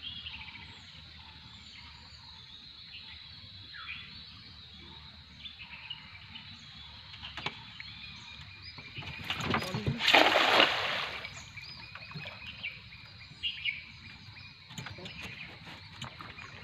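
A weighted cast net lands on the river with a loud splash about ten seconds in, lasting just over a second. Birds call in the background.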